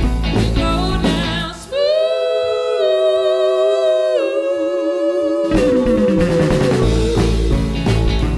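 Live band playing: female lead vocal, electric guitar, upright bass and drum kit. About two seconds in, the band stops and a held sung note carries on alone, stepping down once. The full band comes back in just past halfway, with a line sliding down in pitch.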